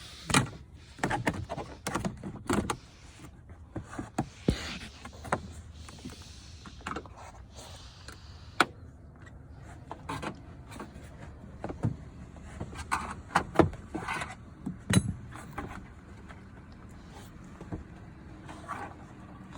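Irregular clicks, knocks and clinks of hand tools: a socket and wrench being fitted and worked on a seatbelt anchor bolt, with metal tapping against metal and plastic trim and a few brief rustles.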